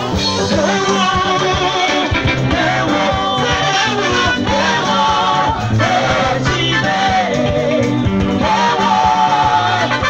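A live band playing: a sung melody over electric guitar and drums.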